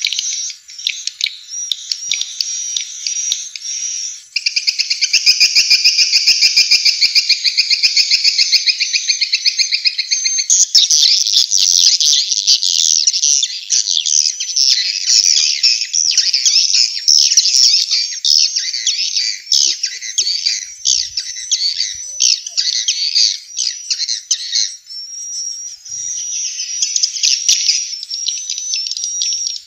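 Swiftlets' twittering calls, as used in lure recordings to draw swiftlets into a nesting house. A steady buzzing trill gives way about ten seconds in to a dense run of rapid high chirps.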